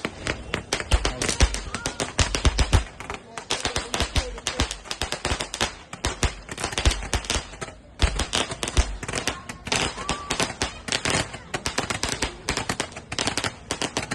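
Firecrackers going off in rapid, continuous volleys of sharp cracks and bangs, like a long string of crackers, with a couple of brief lulls.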